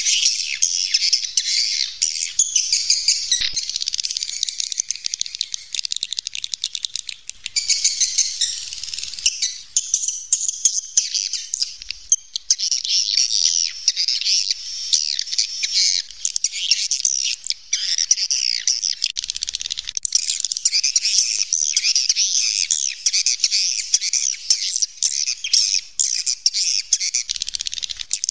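A mass of swiftlets twittering: many high chirps and trills overlap almost without pause, thinning briefly about ten seconds in. This is a swiftlet call recording of the kind used to lure the birds to a nesting house.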